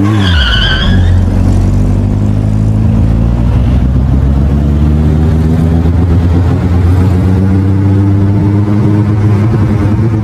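A car engine running with its pitch rising slowly and steadily as it revs up, fading away near the end.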